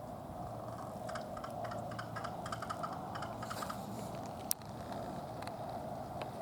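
American crow giving a run of quick, dry clicking notes, a rattle-like call, for about two and a half seconds. About a second later there is a single sharp click.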